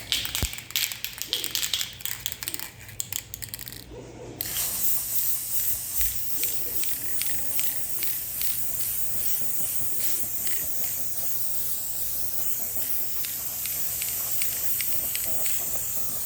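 Aerosol spray-paint can laying down a base coat: a few seconds of clicking and rattling, then a steady spray hiss from about four seconds in.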